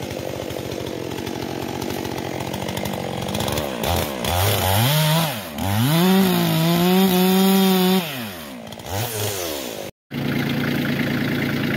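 Stihl MS 400 C two-stroke chainsaw idling, then revved up and pulled through a log, its pitch rising and falling before holding high for about two seconds under load and dropping back. After a sudden break near the end, a tractor engine idles steadily.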